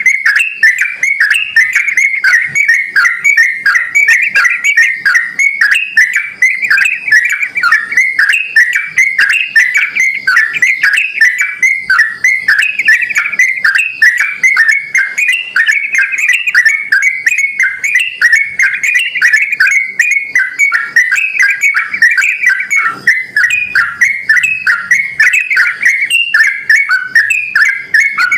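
Yellow-vented bulbul (trucukan) singing non-stop in full voice: a continuous run of short, quick whistled notes, several a second.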